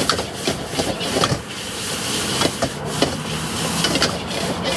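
Stir-frying at a food stall: irregular clicks, knocks and scrapes of a spatula in a wok over a steady sizzling hiss.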